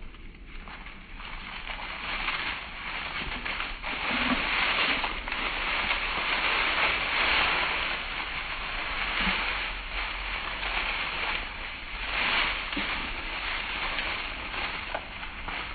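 Dry fallen leaves rustling and crunching as two Dalmatians wrestle and run through them. The rustling swells about four seconds in, stays loud through the middle, and eases off near the end.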